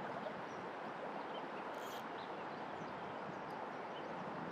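Steady rush of a shallow, riffled river, with a few faint, brief bird chirps above it.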